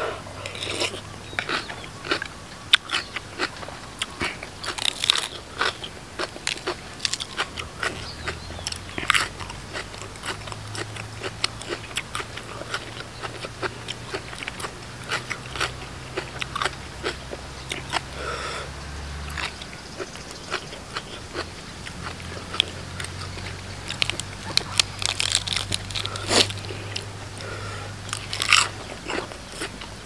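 Close-up biting and chewing with many sharp, irregular crunches: a person eating a spicy pounded salad of crisp lotus stems with raw shrimp.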